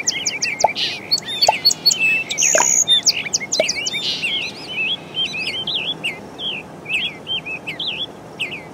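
Birds chirping, a rapid run of quick high calls that thins out and grows quieter toward the end.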